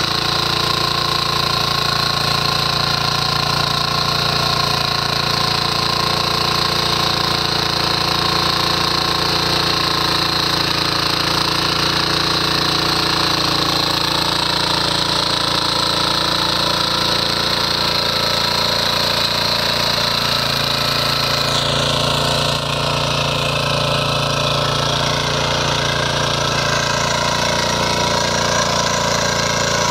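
Single-cylinder engine of a walk-behind power weeder running steadily under load while its rotary tines churn through the soil between crop rows. The higher hiss drops a little about two-thirds of the way through.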